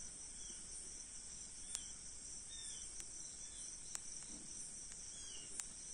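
Crickets trilling steadily at a high pitch, with four sharp clicks scattered through and a few faint short chirps.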